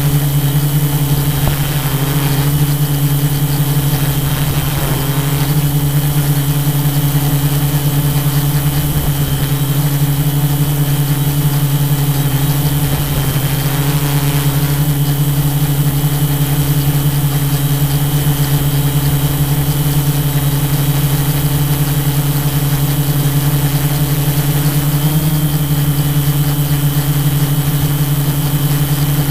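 Tarot 680 Pro hexacopter's six electric motors and propellers running in a steady hover, a loud continuous hum whose pitch shifts slightly now and then as the drone adjusts.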